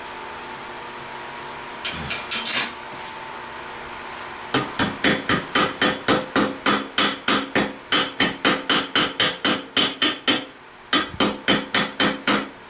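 Hammer blows: a few taps, then a fast, steady run of strikes at about four a second, a short pause, and a last handful of blows.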